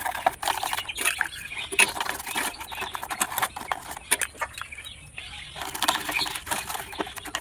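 Small cleaning tools scrubbing wet mud off a plastic toy jet: dense, irregular scratching and clicking, easing off briefly about five seconds in.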